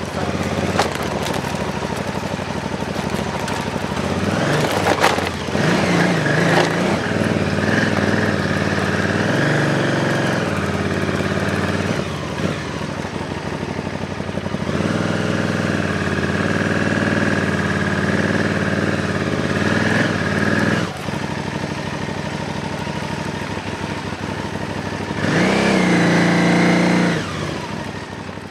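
Motorcycle engine running and revving off-road up a rocky slope, its pitch rising and falling with the throttle, with a strong surge about three-quarters of the way through; it fades out near the end.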